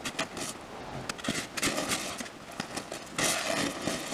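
Snow shovels scraping and scooping packed snow, several at once, in irregular rough strokes, with longer scrapes about a second and a half in and again near the end.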